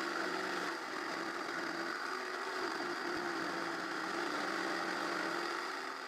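Jigsaw mounted under a table running steadily as its blade cuts through a piece of plywood, the sound starting to die away at the very end.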